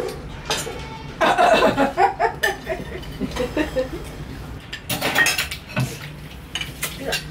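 Metal spoons clinking and scraping against ceramic bowls and plates during a meal, in scattered light knocks. A person's voice comes in briefly about a second in.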